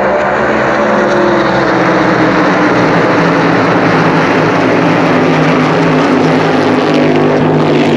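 NASCAR Cup Series stock cars' V8 engines racing past on the oval, a loud continuous engine roar. The engine notes slide down in pitch as cars go by, and more cars arrive through it.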